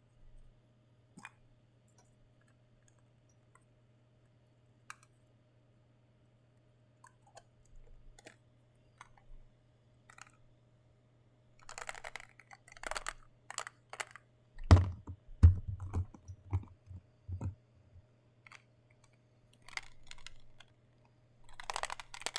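Plastic figurine parts and packaging being handled: scattered small clicks and taps, then crinkling rustles, and a run of loud knocks a little past the middle as pieces are fitted or set down, with more rustling near the end.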